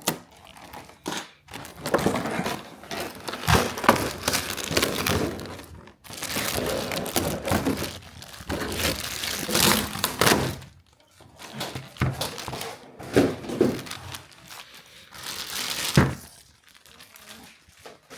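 Plastic packaging and tape being pulled off a large PVC figure: irregular crinkling and rustling, with a few sharp knocks as the figure and its plastic parts are handled.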